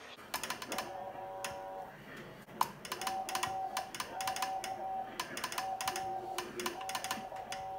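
Morse code sidetone from a CW transmitter being keyed: a steady beep switched on and off in short and long elements, with sharp clicks of the key in between.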